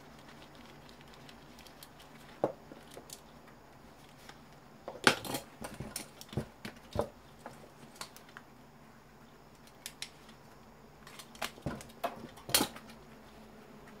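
Sharp clicks and clinks of tools and small metal and plastic parts being handled while an electric fan is taken apart. They come once, then in two short clusters, the loudest a little after the first third and near the end.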